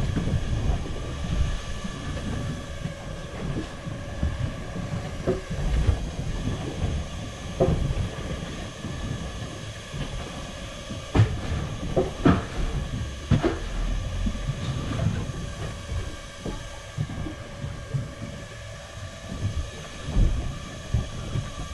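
Steady hum and low rumble on a small fishing boat at sea, with a handful of sharp knocks, most of them around the middle, from a knife striking the wooden board as bait is cut.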